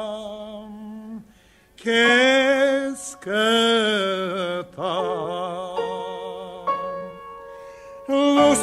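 A man singing an Armenian song in long held notes with vibrato, broken by a brief pause about a second and a half in.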